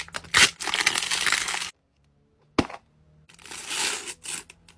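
Wrapper crinkling and tearing as it is peeled off a toy surprise ball, then a short stretch of dead silence and a single sharp click. A quilted foil pouch then crinkles as it is pulled open.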